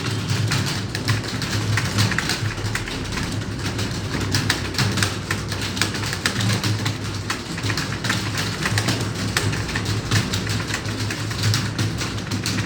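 Many computer keyboards being typed on at once, a dense, continuous, irregular clatter of keystrokes. A steady low hum runs underneath.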